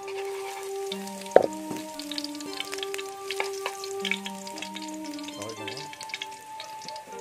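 Minced garlic sizzling and crackling in hot oil in a steel wok, stirred with a metal spatula that scrapes the pan, with one loud knock about a second and a half in. Background music with held notes plays underneath.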